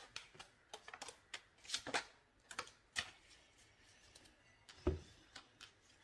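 Tarot cards being shuffled by hand: quiet, irregular clicks and flicks of card stock, with a dull thump about five seconds in.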